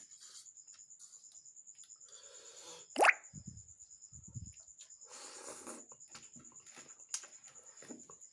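Mouth sounds of someone eating Maggi noodles: soft chewing, and one short, loud wet smack about three seconds in.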